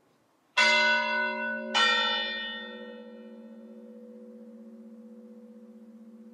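A large bell struck twice, a little over a second apart, each strike ringing out bright and fading to a low hum that wavers slowly as it lingers.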